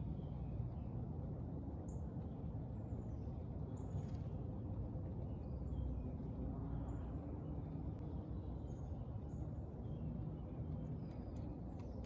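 Scattered short, high-pitched bird chirps over a steady low outdoor rumble.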